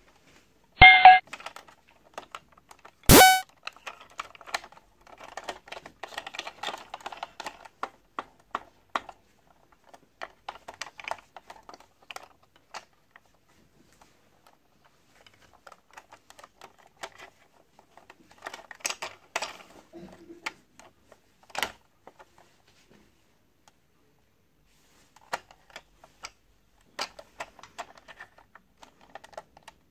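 Hands handling a plastic battery-operated toy train: scattered light clicks and rattles of plastic, after two short, loud horn-like tones about one and three seconds in.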